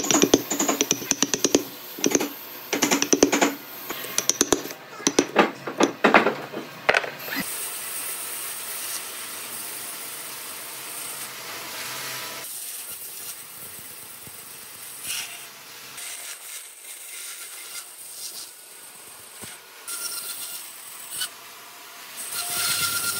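Steel chisel chopping and paring out a mortise in a solid wood block: rapid clusters of sharp knocks and scrapes. About seven seconds in this gives way to a vertical bandsaw running steadily as its blade slices through a thick block of hardwood.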